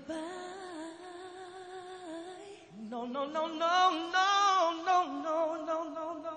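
Live soul ballad duet vocals into microphones: a long held sung note, then from about three seconds in a man's high voice sings a louder ad-lib run with vibrato and sliding pitch.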